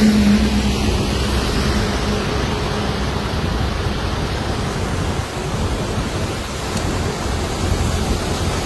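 Floodwater in a swollen hill stream rushing steadily, a dense even wash of noise.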